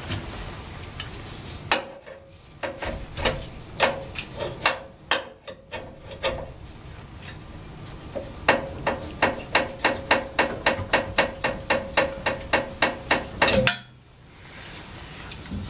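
Sharp metallic knocks from hand tools working the old exhaust pipe off its rubber hangers. A few scattered knocks come first, then a fast even run of about four a second for some five seconds that stops abruptly.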